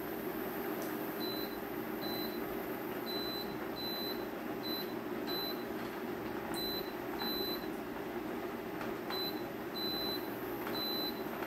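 Pot of kalguksu bubbling steadily at a boil on a tabletop burner. Short high-pitched electronic beeps sound about a dozen times over it, irregularly and often in pairs.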